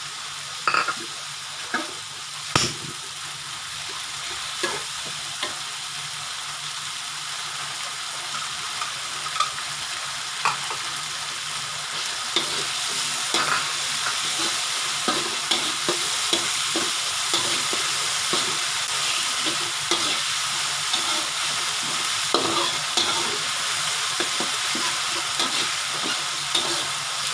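Sliced onions, garlic and bird's-eye chillies sizzling in hot oil in an aluminium wok, with a metal spatula scraping and clicking against the pan as they are stirred. The sizzle grows gradually louder, and there is a sharp knock of the spatula about two and a half seconds in.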